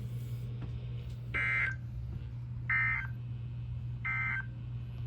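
Three short, buzzy bursts of Emergency Alert System SAME header data, the modem-like screech that announces a new alert, spaced about a second and a half apart over a steady low hum.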